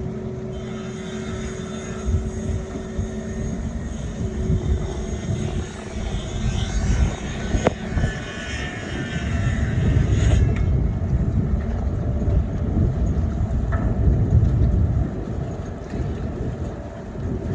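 An engine running with a steady drone that grows heavier in the second half, with one sharp knock near the middle.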